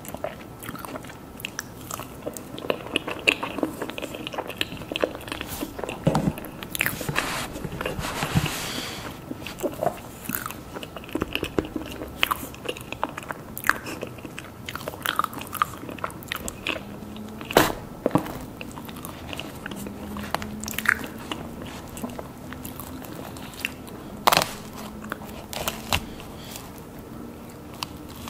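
Close-miked eating sounds of a person biting and chewing mousse cake, with crunching and many sharp mouth clicks. The loudest clicks come just past the middle and about three-quarters through.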